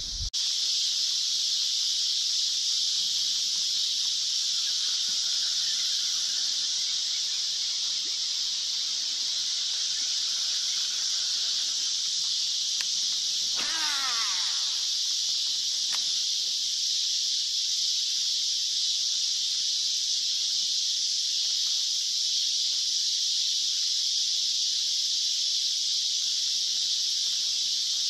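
Steady, high-pitched insect chorus droning without a break, with a short falling call from some animal about halfway through.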